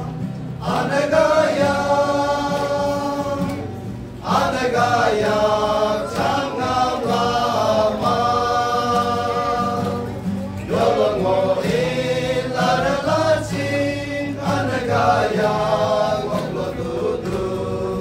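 A men's group singing a Christian song together with acoustic guitar accompaniment, in four sung phrases of about four seconds each, with short breaths between them.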